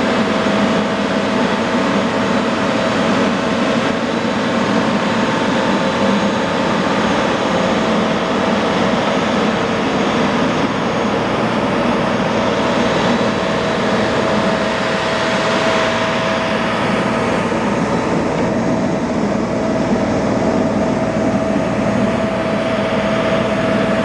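CMI PR800-7 cold planer (asphalt milling machine) running steadily, a loud continuous machine drone with a steady whine; the hiss eases somewhat in the last third.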